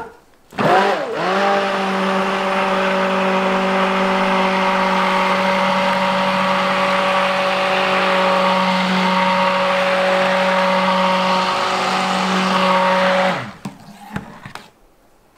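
Handheld immersion blender running in a stainless steel saucepan of thick soap batter at trace: the motor spins up about half a second in, runs steadily with a hum and a hiss, and winds down a little before the end.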